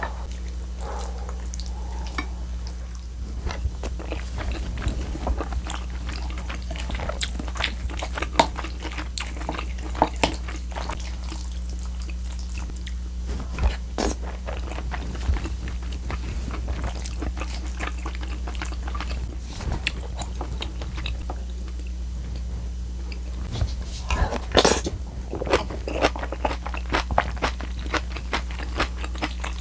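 Close-miked eating: chewing and crunching with many short, sharp mouth clicks, busiest about three quarters of the way through, over a steady low hum.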